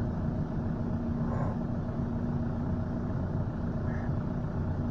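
Steady engine and road noise of a moving vehicle, a constant low drone with a steady hum running through it.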